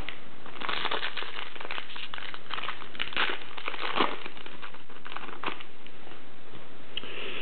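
Foil wrapper of a 1998-99 Flair Showcase basketball card pack crinkling and crackling as it is handled and opened, a run of quick crackles lasting about five seconds.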